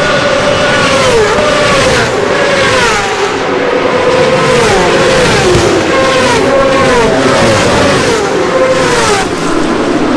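Racing superbikes passing one after another at full speed, their high-revving engines overlapping. Each engine note falls in pitch as the bike goes by.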